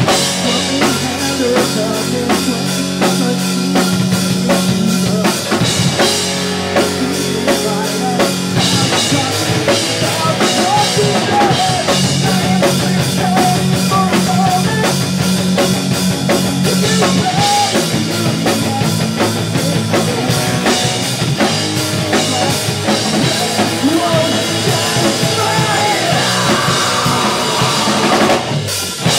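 Pop punk band playing live: fast, driving drum kit with held bass notes and electric guitars, loud and even, with a brief drop near the end.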